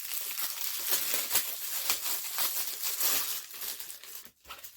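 Packaging crinkling and rustling as it is handled, a dense crackle that dies away in the last second.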